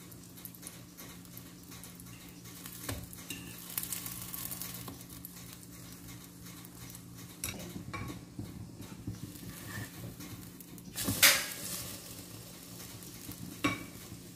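French toast frying in oil in a nonstick pan, sizzling and crackling softly, over a low steady hum. A spatula clicks and scrapes against the pan a few times, loudest about eleven seconds in, when the slice is turned over.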